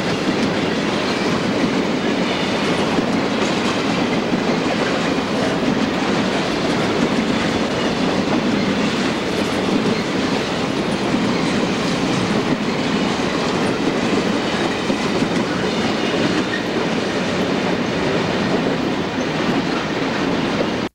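A slow, heavy drag freight of boxcars and covered hoppers rolling past on steel wheels, a steady rumble that does not let up.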